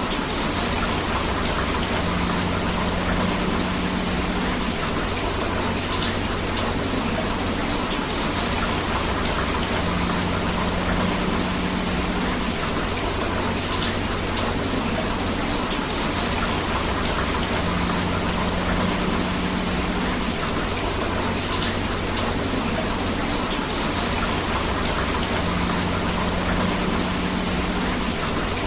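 Steady rain together with a river's rushing water, an even hiss that does not change. A faint low hum comes and goes about every eight seconds.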